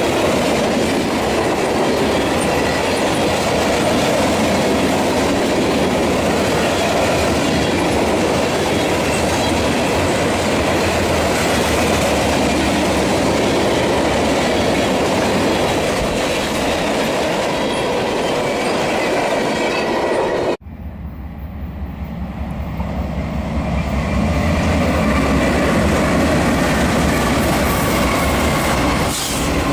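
Freight train cars rolling past, a steady rumble with the wheels clicking over the rails. About two-thirds of the way through the sound cuts off abruptly, then builds back up.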